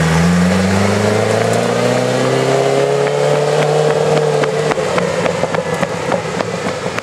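Ferrari F40's twin-turbo V8 running under load, its pitch climbing steadily for about four and a half seconds, then falling away. A run of sharp crackles follows near the end.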